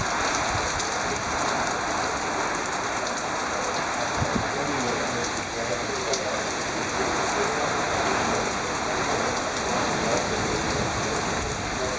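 Rain falling steadily in a severe thunderstorm: an even, unbroken hiss.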